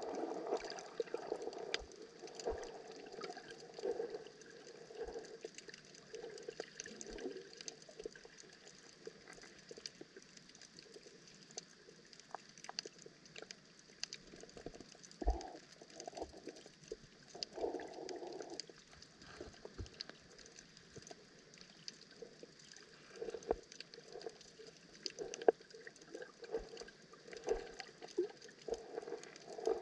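Underwater ambience in shallow water, picked up by a camera in its housing: a steady crackle of scattered small clicks under irregular swells of rushing water, a few of them stronger.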